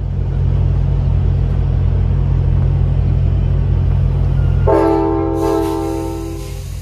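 Diesel train locomotive running close by with a steady low engine rumble, then sounding its horn in one chord blast of about two seconds near the end.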